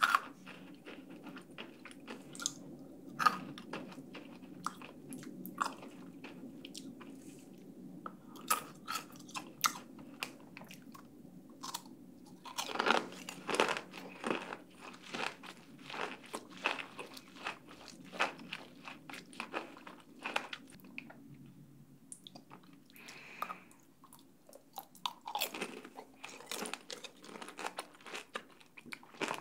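Close-miked chewing of sugar-coated mandarin tanghulu, the candy shell crunching and cracking between the teeth among wet mouth sounds. The crunching comes thickest about halfway through and again near the end.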